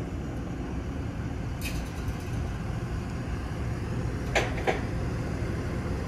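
Crane engine running steadily with a low drone while it holds a section of roller coaster track aloft. Two short high chirps a little past the middle.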